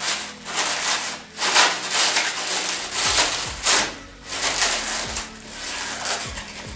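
Plastic stretch film crinkling and rustling as it is pulled and torn off a wrapped item by hand, in a string of short noisy bursts.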